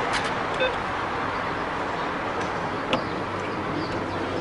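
Steady street background noise with a single short electronic beep about half a second in and a few faint clicks.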